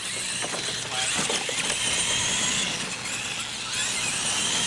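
Two radio-controlled monster trucks racing on dirt: a steady high motor and gear whine over the noise of tyres churning the loose surface.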